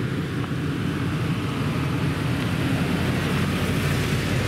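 Ram pickup truck driving slowly past on a dirt track, its engine running steadily and growing slowly louder as it approaches.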